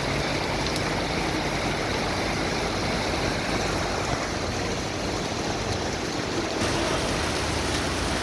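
Steady heavy rain, a continuous even hiss of rain on surfaces and running water, a little brighter near the end.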